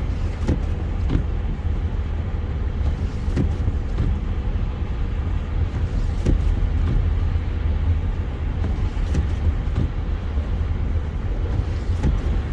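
Steady low rumble of a car driving on a snow-covered road, heard from inside the cabin, with a few faint scattered ticks.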